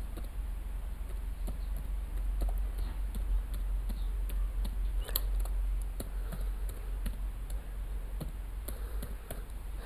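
Computer keyboard typing: irregular keystrokes as an email address is entered, over a steady low hum.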